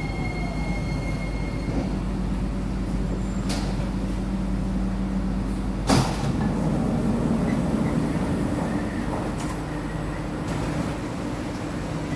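Interior of a Kawasaki–CRRC Sifang C151C MRT train braking to a stop at a station: steady running noise with a motor whine that stops partway, and a sharp clunk about halfway through as the train comes to rest. The doors slide open near the end.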